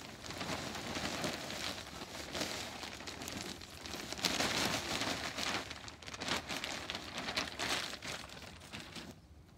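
Potting mix pouring from a plastic bag into a black plastic tub: a steady rustling hiss of soil falling, with the bag crinkling as it is tipped and shaken. It dies away near the end.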